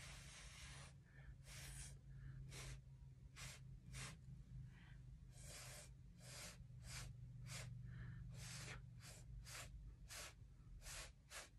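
Faint, quick puffs of breath blown through a drinking straw, about fifteen in a row with short gaps, pushing wet acrylic paint across a canvas in a Dutch pour.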